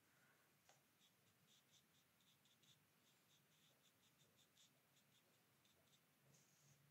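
Near silence with faint, irregular short scratches of a watercolour brush stroking the paper.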